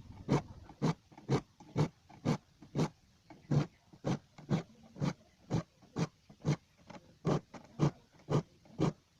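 A hand file rasping across the teeth of a hand saw in short, even strokes, about two a second, to sharpen the blunt blade.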